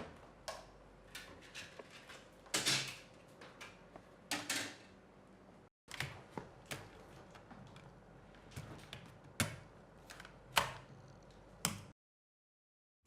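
Irregular knocks, clicks and brief rustles of movement in a small room, stopping dead about a second before the end.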